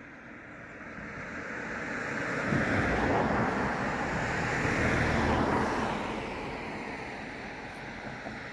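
A vehicle passes by: engine and road noise swell to a peak a few seconds in, then fade away.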